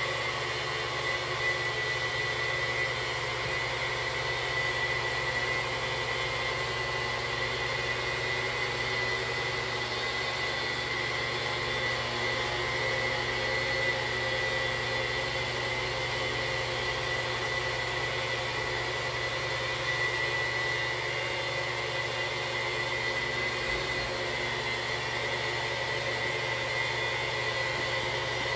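Electric polisher running steadily with a 3M 4100 Super Shine pad spinning on wet shower glass, buffing off hard-water spots. It makes a constant motor whine with a steady high tone.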